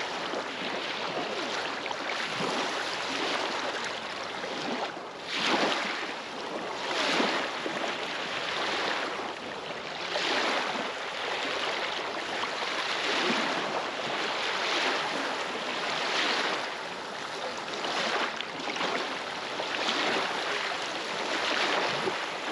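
Small waves on a glacial lake lapping and breaking against the rocky shoreline: a steady wash of water with a fresh splash every second or two.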